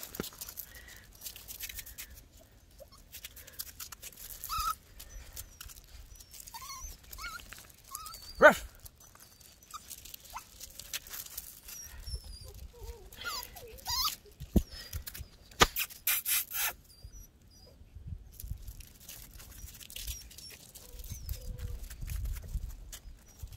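Eleven-week-old Miniature Pinscher puppies playing: short whimpers and yips here and there, one loud sharp sound about eight seconds in, and paws scuffling on gravel, busiest about twelve to seventeen seconds in.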